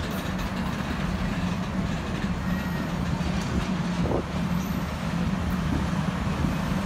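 Union Pacific passenger cars rolling past on the rails: a steady rumble of steel wheels on track.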